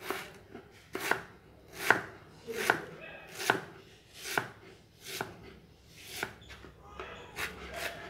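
Knife cutting vegetables on a chopping board, a steady series of about ten sharp knocks, a little more than one a second.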